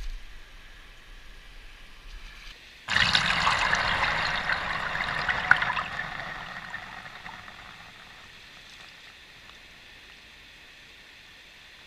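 Shallow surf water washing and fizzing over wet sand, starting suddenly about three seconds in and fading away over the next several seconds, with one sharp click in the middle.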